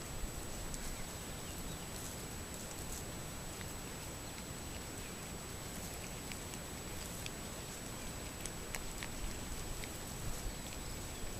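Steady hiss with a thin, constant high whine from a trail camera's microphone and electronics, with scattered faint ticks.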